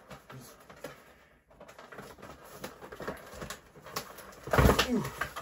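Irregular clicks, taps and rustles of a toy being worked free of its cardboard-and-plastic packaging. A louder burst of handling noise comes near the end.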